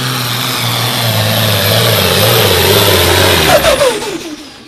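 Turbocharged diesel engine of a 9,300 lb Super Farm pulling tractor running hard under load as it pulls the sled. About three and a half seconds in its pitch falls as the engine comes off the throttle, and the sound fades away.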